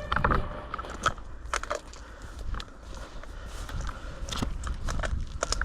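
Slow, stealthy footsteps crunching through dry leaves and twigs: scattered, irregular crackles and snaps.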